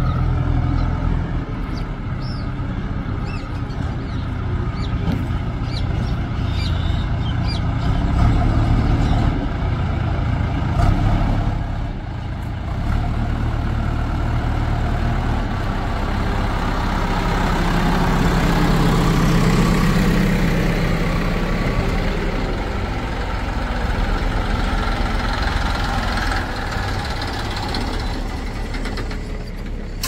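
Heavy diesel engines of a backhoe loader and farm tractors running steadily at work, the engine note growing louder and heavier for a few seconds a little past the middle.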